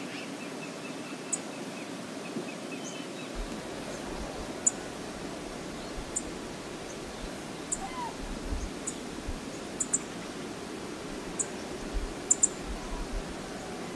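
Steady rush of flowing river water, with short, very high bird chirps every second or so and low gusts of wind rumble on the microphone from a few seconds in.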